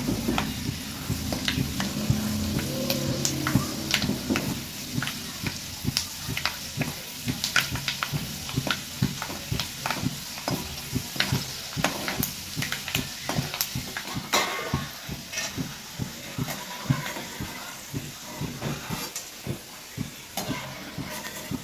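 Charoli (chironji) seeds sizzling as they fry in ghee in a metal kadai on a low flame, with a steady hiss. A perforated metal spatula scrapes and clicks against the pan as they are stirred.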